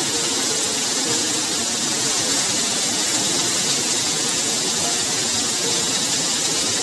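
Heavy rain falling steadily on pavement and leaves, an even, unbroken hiss.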